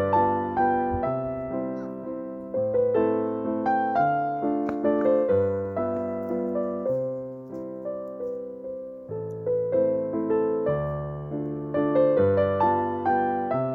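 Gentle solo piano music: a slow melody over held bass notes, each note struck and left to fade.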